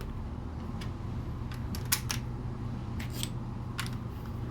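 Plastic LEGO pieces clicking and tapping as they are handled and pressed into place: a scatter of short, sharp clicks over a steady low hum.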